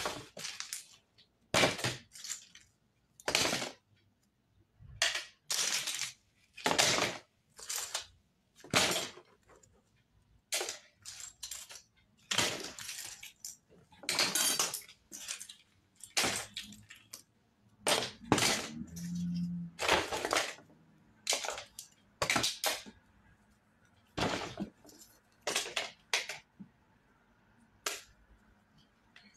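Pieces of trash dropped one after another into a paper grocery bag: a long, irregular series of short noisy hits, each lasting a fraction of a second, about twenty in all.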